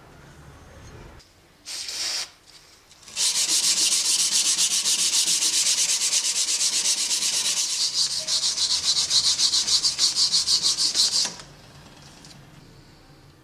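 Hand sanding the steel bevel of a cleaver made from a saw blade: a sanding block is rubbed quickly back and forth, about four strokes a second, as a steady scratchy hiss. It starts about three seconds in, after one short scrape, and stops a couple of seconds before the end.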